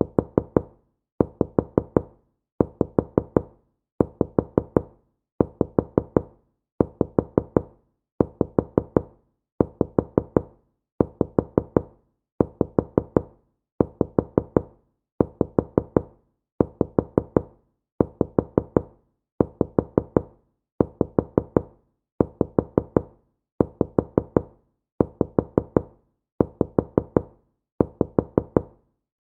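Soft knocking on a wooden door: quick sets of about four knocks, repeating about every second and a half.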